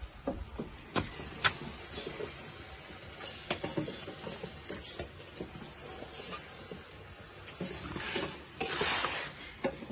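Chopped tomatoes added to a metal pot over a wood fire and stirred with a wooden spoon: scattered knocks and scrapes of the spoon against the pot, with a louder sizzling hiss about eight seconds in.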